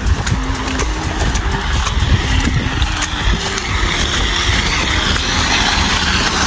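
A car driving slowly through wet slush, its tyres hissing on the slushy road, the hiss growing louder as it comes closer in the second half. Under it runs a steady low rumble.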